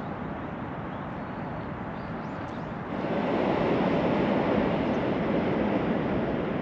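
Train running past, a steady rumbling noise that jumps sharply louder about three seconds in and stays loud.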